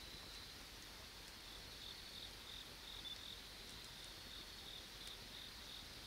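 Faint, high-pitched insect chirping in a steady, pulsing trill.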